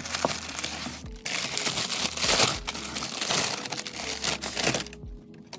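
Packing material in a cardboard shipping box crinkling and rustling as a stack of manga volumes is pulled out by hand, pausing briefly about a second in.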